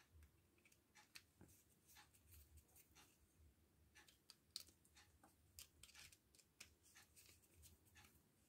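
Faint, scattered small metal clicks and scrapes, a few a second, as a screwdriver works against the copper wire being fitted as a soldering iron tip; otherwise near silence.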